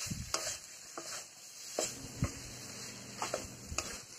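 A spatula scraping and knocking against a metal kadai in irregular strokes while stirring vegetables and tomato frying in it, with a faint sizzle underneath.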